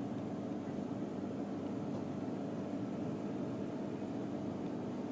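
Steady low mechanical hum of room background noise, unchanging throughout, with two faint high ticks just after the start.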